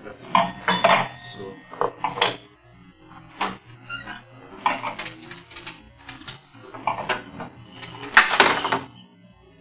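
A wine bottle being opened with a corkscrew: a series of short metal-on-glass clinks and scrapes, the loudest and longest about eight seconds in.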